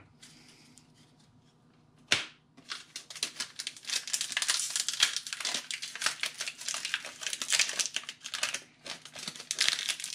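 Foil Pokémon TCG booster pack wrappers crinkling and tearing as they are handled and opened by hand. It starts with a sharp crackle about two seconds in and runs on as dense crinkling.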